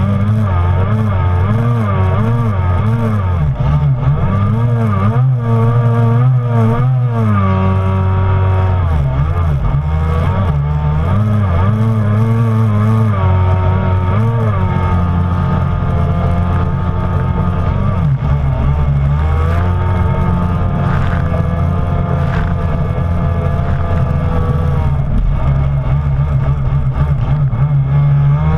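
The two-stroke engine of a stand-up Kawasaki Jet Ski running hard over rushing water and spray. Its pitch swings up and down as the rider carves through turns, then holds steadier for long stretches at full throttle.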